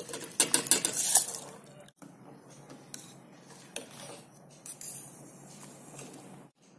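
Basmati rice grains poured from a bowl into a stainless-steel vessel of water, a loud, dense pattering clatter for about two seconds. Then the rice is swirled in the water to wash it: a softer, steady swishing with a few clinks against the steel.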